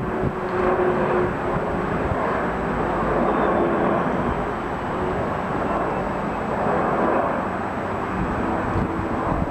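Jet airliner engines heard from the ground as the aircraft passes, a loud steady rush of noise with a faint steady hum under it.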